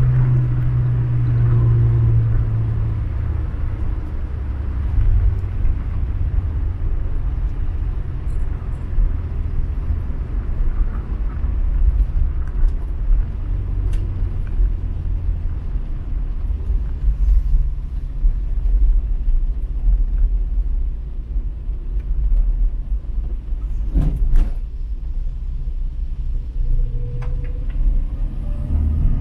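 Skoda car being driven: a steady low engine and road rumble, with the engine note falling away over the first few seconds and a short knock a little before the end.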